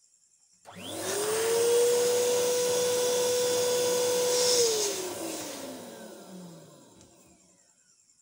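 Small electric air pump inflating a balloon. Its motor starts and climbs quickly to a steady hum over rushing air, runs for about four seconds, then is switched off and winds down, the hum falling in pitch as it fades.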